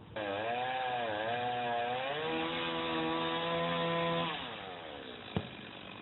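Chainsaw trimming branches on a cottonwood tree. It starts suddenly, its pitch dips and recovers, holds steady at high revs, then winds down about four seconds in. A single sharp knock follows near the end.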